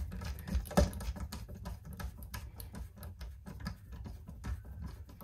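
Hand screwdriver driving small tuner screws into a guitar's wooden headstock: a quick, uneven run of light clicks, with one sharper knock about a second in.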